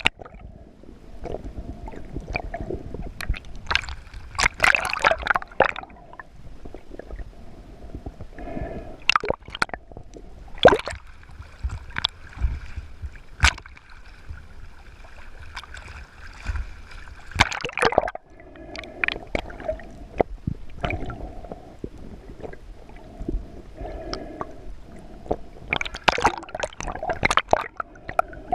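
Water gurgling and sloshing around a submerged or half-submerged camera, with irregular surges of bubbling and sharp clicks and knocks.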